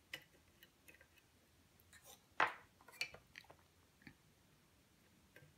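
Lock pick working the pins of a pin-tumbler lock held under tension: scattered faint clicks and light scrapes, the loudest a short scrape about two and a half seconds in.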